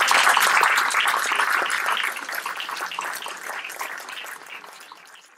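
Audience applauding with many hands clapping, loud at first, then fading away over the last three seconds before cutting off.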